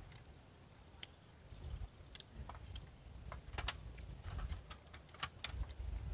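Scattered light clicks and taps of eating at a table: a fork and hands against aluminium food trays, irregularly spaced, over a faint low rumble.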